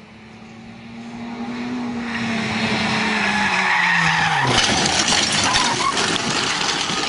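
Rally car approaching at speed, its engine note rising in loudness, then dropping in pitch about four seconds in. Half a second later comes a sudden loud rush of crashing and clattering debris as the car leaves the road into the dirt, which dies away near the end.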